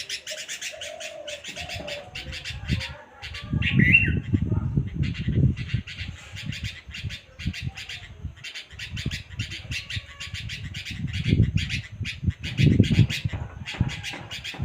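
Bulbul calling: a fast, steady run of sharp chirps, about four a second, with a short gliding whistled note about four seconds in. A low rumble comes and goes underneath.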